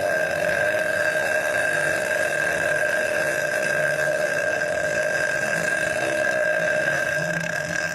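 A woman's long, drawn-out belch, held in one continuous rasp for nearly eight seconds before it breaks off near the end.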